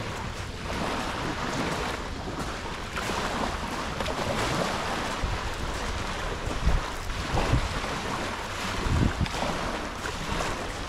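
Sea waves washing on a beach, with wind buffeting the microphone in several low bumps in the second half.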